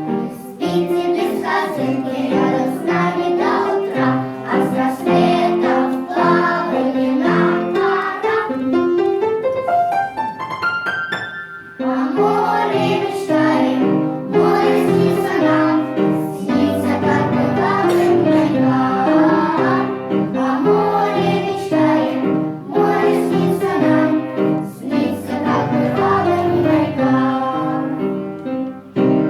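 A song: singing over instrumental backing. About ten seconds in, a run of notes climbs upward, the music briefly drops away, then the song resumes.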